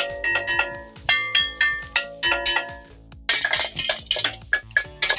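Wooden spoons drumming on hanging metal pots and pans: an uneven run of clanking strikes, several a second, each ringing on at its own pitch before fading.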